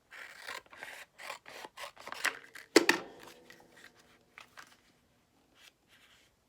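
Scissors snipping through thin transparent plastic overlay film in a run of quick cuts, with a sharp clack that rings briefly about three seconds in, then a few fainter snips.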